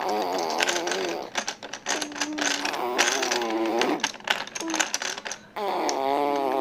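A baby babbles and hums while fiddling with a plastic ring toy on a high-chair tray, the rings clicking and clacking; a busy run of sharp plastic clicks falls between about one and four seconds in.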